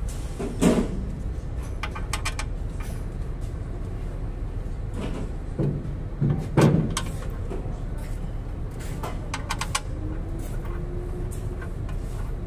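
Hand work on a truck's clutch pressure plate: a few dull metal knocks, the loudest about two-thirds of the way through, and two short runs of quick clicking, over a steady low rumble.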